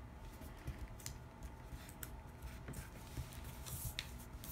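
Faint rustling of cardstock being pressed down and handled on a wooden tabletop, with a few light clicks and taps.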